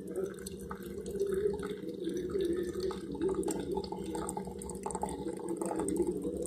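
Hot water poured in a thin stream onto ground coffee in a paper filter in a plastic pour-over coffee dripper, trickling and splashing with dripping, over a steady low hum.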